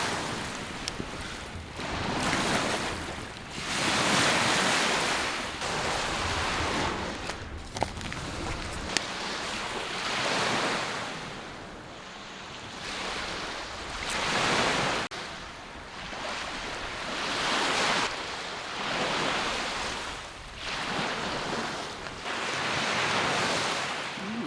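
Lake Superior waves washing onto the shore, one surge rising and falling about every two to four seconds, with some wind.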